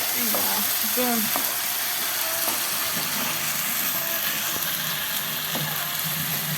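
Şehriye vermicelli and soaked rice frying in butter in a pot, with a steady sizzle.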